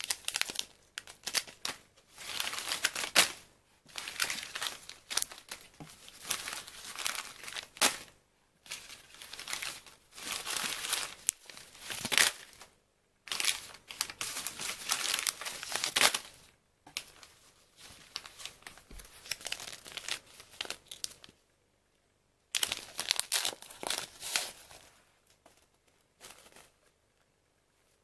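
Tea packaging being unwrapped and torn open: bouts of crinkling, crumpling and tearing of paper or plastic wrap, with short pauses between them, dying away a few seconds before the end.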